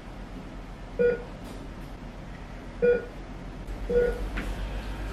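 Heart-monitor beeps: three short, single-pitched beeps at uneven intervals, over a low steady hum.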